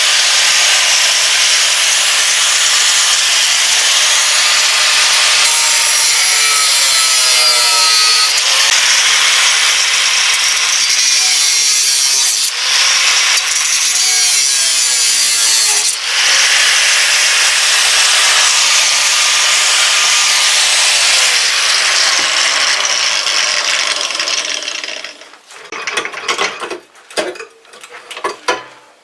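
A power tool working on metal runs steadily, its pitch sagging at times under load, with two brief pauses. About 25 seconds in it stops, and a few sharp metal clicks and knocks follow.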